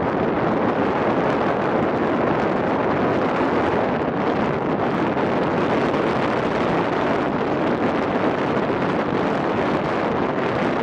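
Wind blowing steadily across the microphone, a constant loud rush.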